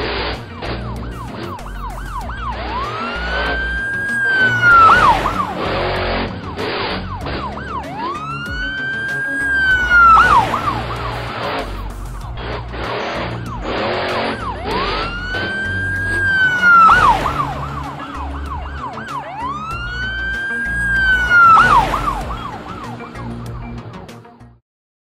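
Cartoon background music with a steady beat and a siren-like synth glide that rises, holds and drops sharply, repeating four times about six seconds apart. It fades out at the very end.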